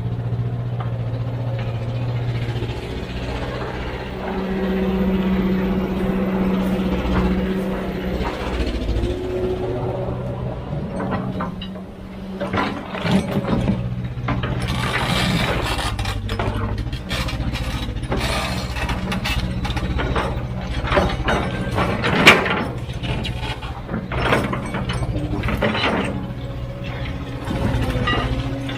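Heavy diesel machinery running steadily, with a run of clanks and knocks from about halfway on, as of rock and metal striking; one sharp knock is the loudest.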